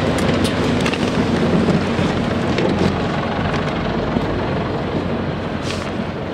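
Steady engine hum and rumble of a bus, heard from inside, with a few light clicks and rattles.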